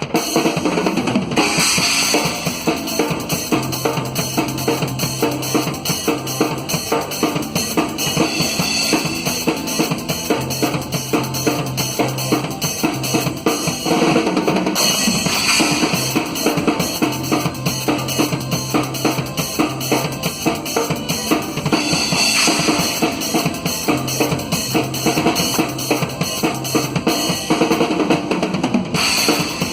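Drum kit played in a continuous groove at a soundcheck, with bass drum, snare and cymbals in a dense, even rhythm. A low held note comes and goes underneath.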